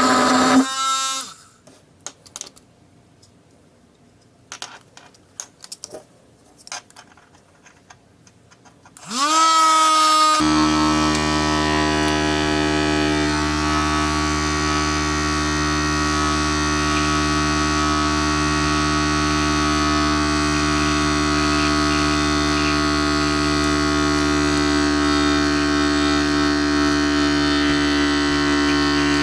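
Small electric motor of a homemade mini vacuum cleaner stopping about a second in, then a few clicks, then spinning up with a rising whine about a third of the way through and running at a steady, buzzing hum.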